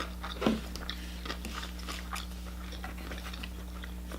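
Close-up mouth sounds of someone chewing a shrimp sushi roll: many small wet clicks and smacks, with a louder smack about half a second in. A steady low hum runs underneath.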